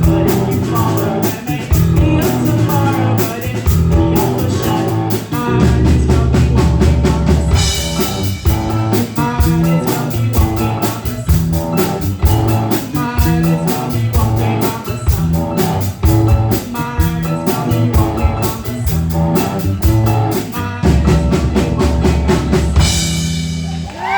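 Live rock band playing a blues-rock instrumental passage: drum kit keeping a steady beat under bass and electric guitar, with a cymbal crash as the song closes near the end.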